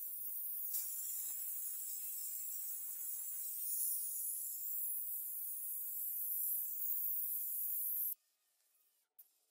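Handheld sandblasting gun blasting abrasive against a rusty steel sidecar body to strip the rust: a steady high hiss that cuts off suddenly about eight seconds in.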